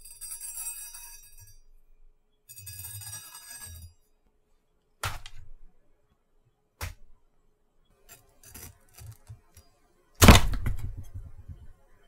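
A kitchen knife slicing down through a wedge of yellow watermelon, with two crisp crunching, rasping strokes through the flesh and rind. Then come two sharp taps of the blade, a few light ticks, and a heavy thunk about ten seconds in as the blade cuts through the rind onto the wooden board, the loudest sound.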